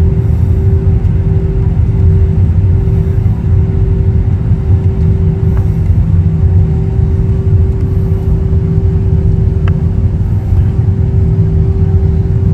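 Steady low rumble of a jet airliner's engines with a constant hum, heard from inside the cabin as the aircraft taxis.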